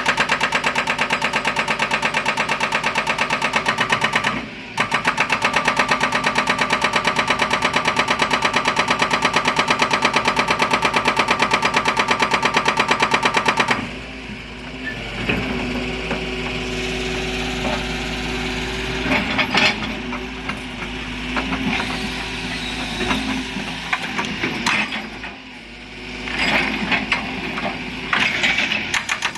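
Excavator's hydraulic breaker hammer pounding rock in rapid, even blows, with a short pause about four seconds in. Around halfway the hammering stops and the excavator's engine runs with scattered clanks and knocks, and the rapid hammering starts again at the very end.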